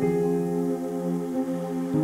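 Slow ambient new-age music of soft sustained chords, a new chord sounding at the start.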